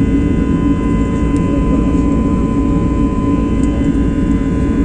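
Aeroplane engines running loudly and steadily during a take-off run, a low rumble with a steady whine on top.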